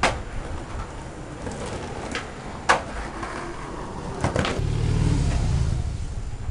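Skateboard clacking down hard on concrete at the start, a few more sharp clacks of the board, then its wheels rolling on concrete with a low rumble near the end.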